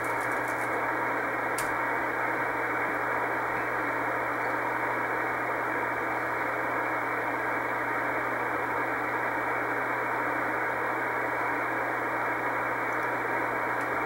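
Steady hiss of shortwave band noise from a communications receiver tuned to 5058 kHz in CW mode, narrowed by the receiver's filter, over a low steady hum. No Morse keying is heard.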